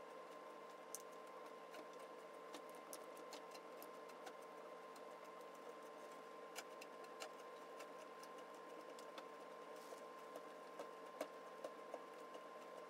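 Faint, scattered clicks and ticks of small metal parts being handled and fitted on an old transformer welding machine's front panel, with a few louder clicks close together near the end, over a steady faint hum.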